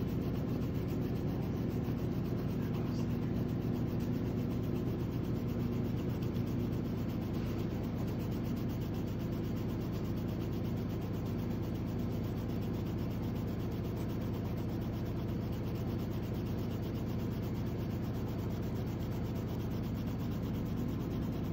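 Graphite of a No. 2 pencil rubbing on sketchbook paper in slow, light shading strokes, over a steady low hum from a running washing machine.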